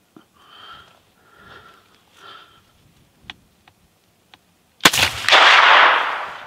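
Muzzleloader rifle fired once, about five seconds in: one sudden loud shot whose blast dies away over about a second and a half. Before it come three soft breathy sounds close to the microphone and a few faint clicks.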